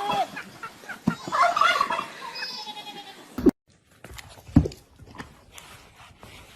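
An animal calling in a run of short, loud, pitched cries that bend up and down, then, after a brief break, a few quieter knocks and one sharp thump.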